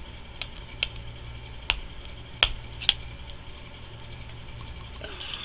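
A run of sharp clicks and taps from handling contact lens packaging and a lens case, five in all, the loudest about halfway through, over a steady low hum.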